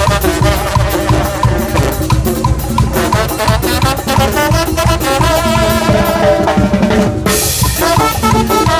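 Mexican banda brass band playing: horns hold sustained melody notes over a driving drum beat, with a cymbal-like crash about seven seconds in.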